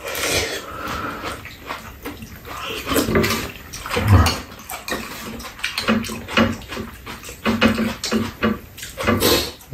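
Two people slurping and chewing ramen noodles with soft tofu and fish cake: irregular wet mouth sounds coming one after another.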